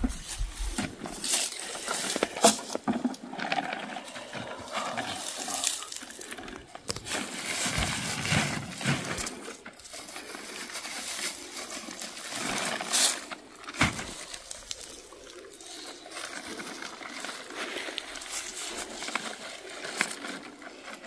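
Apples tumbling out of a plastic bucket into a plastic sack, with irregular knocks and the sack rustling, then softer rustling as the full sack is gathered and tied.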